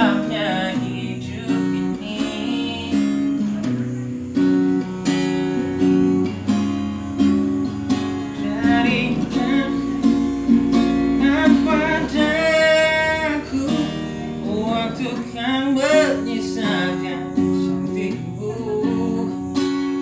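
Acoustic guitar strumming chords through an instrumental break in a pop ballad, with wordless singing drifting in and out at times.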